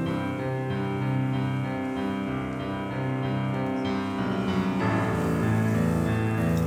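Piano music with slow, held notes that change every second or so.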